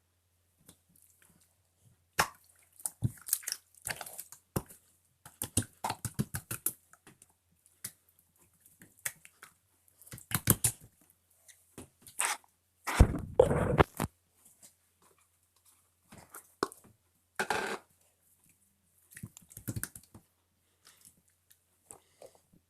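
Irregular clicks, crackles and rustling close to the microphone, with a longer, louder burst of noise about thirteen seconds in.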